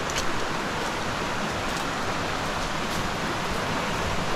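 Steady rush of a river flowing over rocks just above a waterfall, with a couple of faint clicks right at the start.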